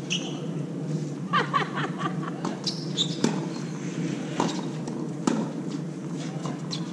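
Tennis balls struck by racquets and bouncing on a hard court: sharp pops about a second apart through the middle, over a steady outdoor background with a few short squeaky sounds.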